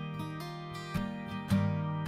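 Background music: a strummed acoustic guitar with held notes, two strums standing out about halfway through, between sung lines of the song.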